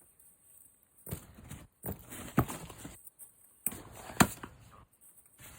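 Snow crunching underfoot and under hands, with a few sharp thumps about two and four seconds in.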